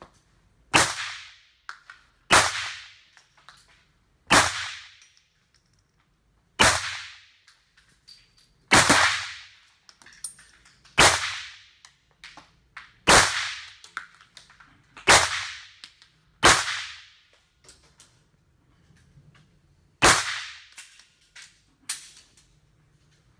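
Handgun shots fired one at a time, about a dozen at uneven intervals of roughly two seconds. Each crack rings out in the echo of an indoor tunnel shooting range.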